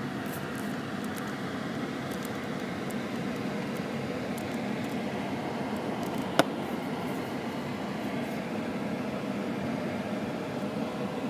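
Steady road and engine noise heard from inside a moving car's cabin, with a single sharp click about six seconds in.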